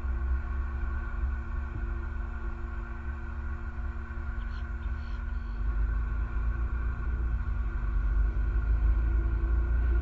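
Steady low outdoor rumble with a constant hum running under it, and a few faint short high chirps about halfway through.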